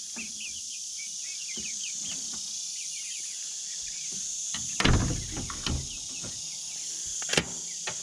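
Chicken coop pop door swung shut and latched: a loud knock about five seconds in, a smaller knock, then a sharp click of the metal latch near the end. Soft chirping from young hens early on, over a steady high-pitched evening insect chorus.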